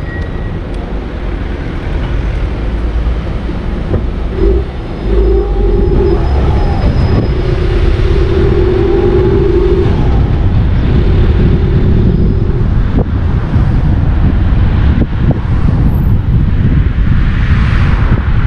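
Car driving through town streets: a steady low rumble of engine and road noise, with a steady hum that comes and goes from about four seconds in to about thirteen seconds, and a swell of hiss near the end.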